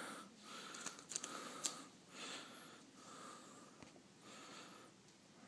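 Faint rustling of a tablet in a plastic sleeve being lifted out of its cardboard box, heard as several short, soft bursts.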